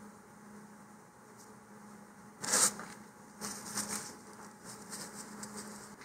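Paper rustling and sliding as a printed instruction sheet is handled and turned around on a cutting mat, with the loudest rustle about two and a half seconds in and softer rustles after it.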